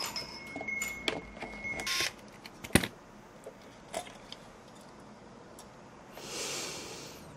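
Clicks and knocks of hardware being handled as a tower CPU cooler is worked loose and lifted off a motherboard, with one sharp knock about three seconds in. A thin steady tone sounds briefly about a second in, and a soft rustle comes near the end.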